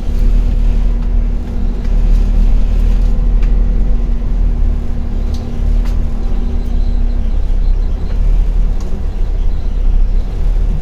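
Low, steady rumble of a bus heard from inside the passenger cabin, with a steady hum that cuts off about seven seconds in.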